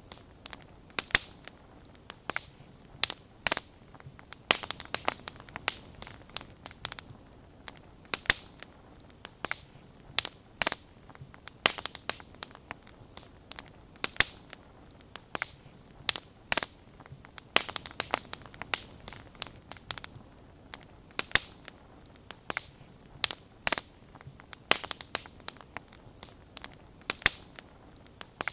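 Wood fire crackling, with irregular sharp pops and snaps a few times a second over a faint hiss.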